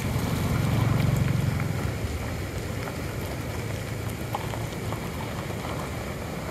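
Wind buffeting the microphone, a low rumble that swells about a second in and then eases, over a steady hiss.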